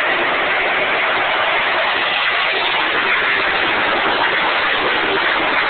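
A pack of race cars running at speed around an oval track, heard as a loud, steady wall of engine noise.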